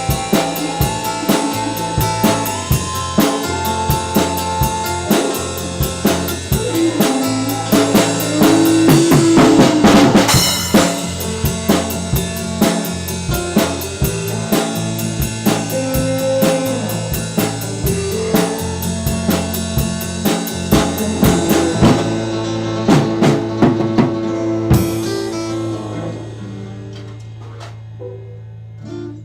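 Rock band playing, with a drum kit and lead guitar. The dense drumming stops about 22 seconds in, a few last hits follow, and the band's final chord rings out and fades near the end.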